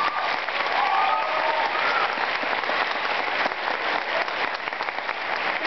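Audience and cast applauding steadily after an award is presented, with a few voices calling out over the clapping in the first couple of seconds.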